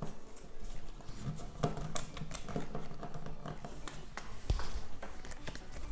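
Pokémon trading cards and booster packs being handled: scattered light taps, clicks and rustles of card and pack wrapper.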